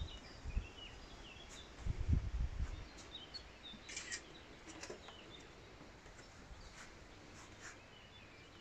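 Small birds chirping faintly over quiet outdoor background noise, with a brief low rumble about two seconds in.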